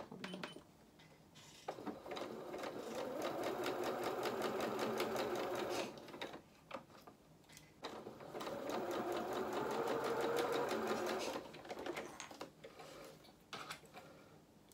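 Electric sewing machine sewing a three-step zigzag stitch, running at speed in two stretches of about four seconds each with a short pause between. A few light clicks follow near the end.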